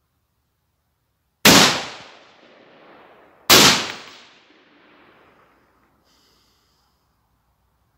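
Two shots about two seconds apart from a Mossberg MMR Pro AR-15 rifle firing .223 Remington full metal jacket rounds. Each is a sharp crack followed by an echo that dies away over about two seconds.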